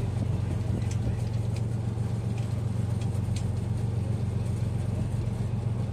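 A fishing boat's engine running steadily under way, a constant low drone. A few faint light clicks sound in the first half.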